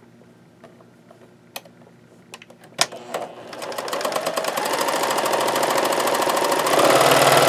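A few light clicks, then about three seconds in a Pfaff Select 1546 electric sewing machine starts and runs a zigzag test seam on knit fabric. The rapid stitching gets louder as it goes, loudest near the end.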